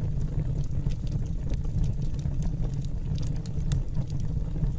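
Log fire burning: a steady low rumble with scattered, irregular crackles and pops.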